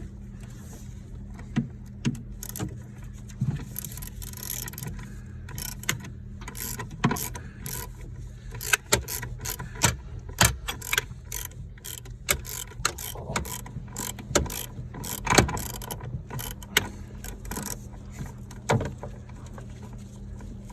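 Ratchet wrench clicking in irregular runs while loosening the 10 mm bolts that hold a van's accelerator pedal, with sharper knocks of tool on metal, busiest in the middle. A steady low hum runs underneath.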